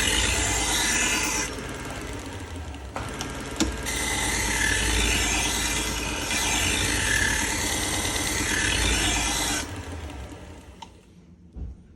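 Belt grinder running a felt belt, with a steel butcher-knife edge held against it to strip the burr. The rubbing is louder in two stretches, the first about a second and a half long and the second about six seconds, then the sound fades away in the last two seconds.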